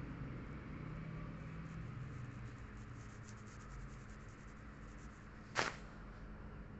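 Low steady background hum and hiss with one short, sharp sound about five and a half seconds in.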